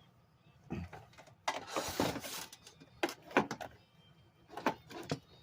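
Plastic clattering and scraping with scattered knocks and clicks, as parts of a flat-screen TV's plastic housing and hand tools are handled. A longer scraping rattle comes about a second and a half in.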